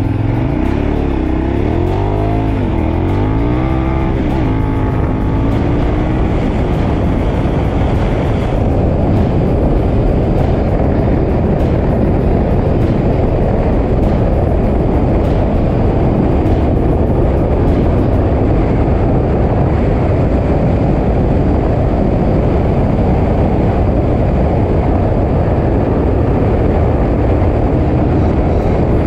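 KTM 1190 Adventure R's V-twin engine accelerating hard, its pitch climbing and dropping with each upshift in the first few seconds. It then settles into a steady high-speed run under heavy wind rush.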